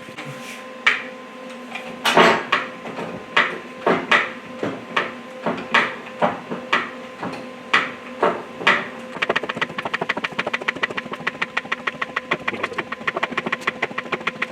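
Metal tool work on a cylinder liner puller: separate metallic knocks about once a second, then a fast, even clicking about six times a second from about nine seconds in, over a faint steady hum.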